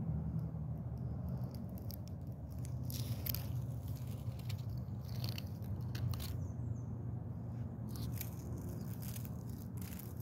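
Outdoor ambience over dry leaf litter: a steady low rumble with scattered light clicks and crackles, and a faint high bird chirp a little past halfway.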